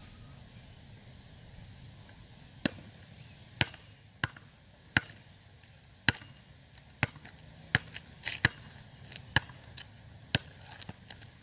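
Basketball bouncing on an outdoor asphalt court during a dribbling drill: about a dozen sharp bounces, roughly one a second, starting a few seconds in.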